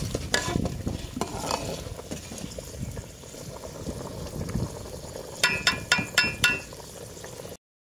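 Metal slotted spatula stirring a bubbling, boiling pulao stock in an aluminium pot over a wood fire, with a steady low rumble under it. Near the end, about five quick ringing metal clinks of the spatula against the pot.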